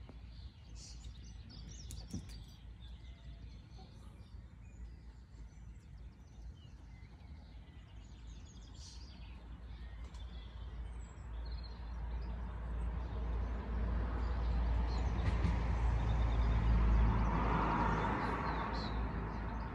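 Small birds chirping over a steady low rumble. In the second half a passing vehicle's noise swells to a peak near the end, then starts to fade.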